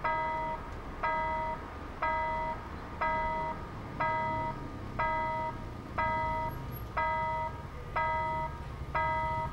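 Railway level-crossing warning bell ringing about once a second, each ring a clang of several pitches lasting about half a second: the crossing is active, with its barriers down for an approaching train. A low rumble builds underneath from about halfway through.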